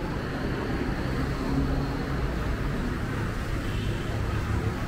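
City street traffic: a steady low rumble of cars and their engines driving past on the road.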